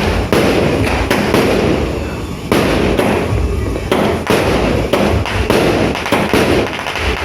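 A 16-shot consumer fireworks cake (L.F. Fireworks "Amber") firing, with sharp bangs coming irregularly, several a second, over a continuous dense din of explosions.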